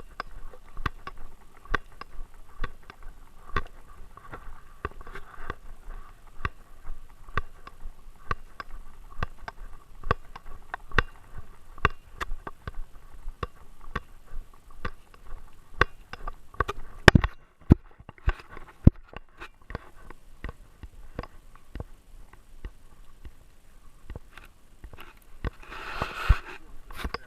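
A GoPro camera strapped to a Great Dane, its housing and mount knocking and rattling at about two or three knocks a second as the dog moves. A short rushing noise comes near the end.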